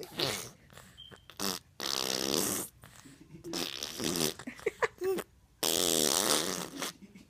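A baby blowing raspberries: buzzing lip trills in several bursts, the longest lasting over a second near the end.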